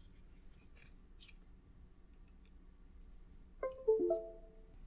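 Faint rustling and small clicks as a USB cable is handled. About three and a half seconds in comes a short chime of a few quick notes, the Windows device-connect sound, as the ESP8266 board is plugged in by USB.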